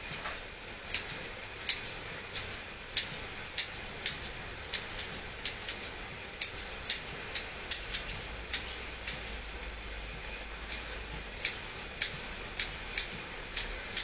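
Grooming scissors snipping the fur on a dog's front paw: short, sharp snips at an uneven pace of about two a second.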